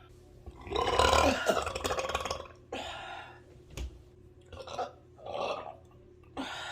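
A woman's long, loud burp, about two seconds long, starting about half a second in, brought up by gas from chugging two litres of Coke. A few shorter, quieter sounds follow.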